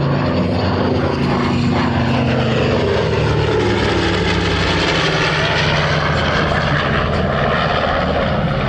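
Propeller-driven warbird's piston engine running as the aircraft flies past, its pitch dropping as it goes by.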